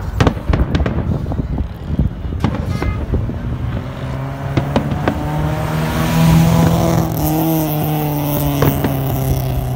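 Fireworks going off with sharp bangs and crackles. Partway through, a car engine starts running close by, and its pitch rises briefly and then settles, as if revving or pulling away.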